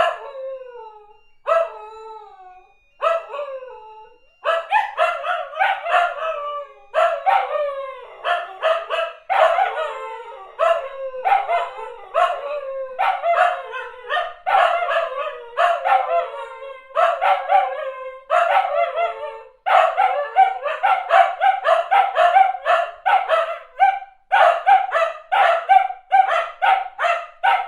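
A dog singing: short pitched howls and yips that each slide down in pitch, a few spaced calls at first, then a quick unbroken run of them from about four seconds in.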